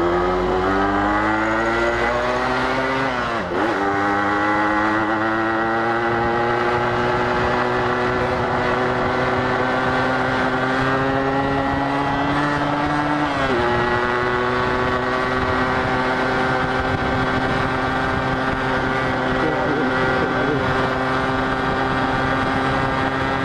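Yamaha RX-King's two-stroke single-cylinder engine accelerating under the rider. It climbs in pitch, drops sharply at an upshift about three and a half seconds in, climbs through the next gear and shifts up again at about thirteen seconds, then holds a steady cruise.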